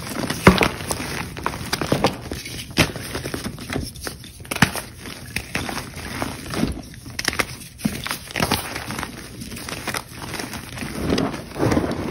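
Chalk being crushed by hand: irregular crumbling and crackling, with sharp cracks here and there.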